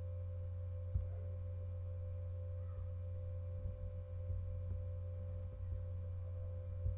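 Steady low electrical hum with fainter steady higher tones, the background noise of the recording setup, with a single soft click about a second in.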